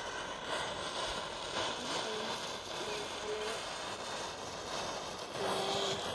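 Wooden matchsticks catching fire one after another, their heads flaring with a steady hiss and faint crackling.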